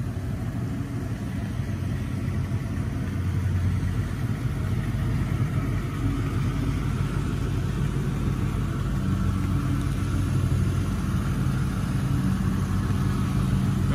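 1985 Lincoln Town Car limousine's 302 V8 idling steadily, a low even hum that grows a little louder near the end.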